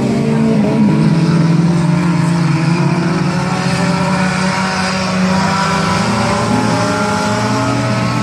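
Engines of a field of dirt-track race cars running around the oval together, several engine notes overlapping and drifting slightly up and down as the cars circle.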